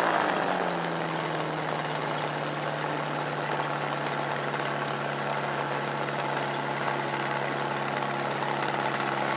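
Fox V4 ultralight aircraft's engine running at low power while taxiing on the runway. Its revs drop a little in the first second, then hold steady.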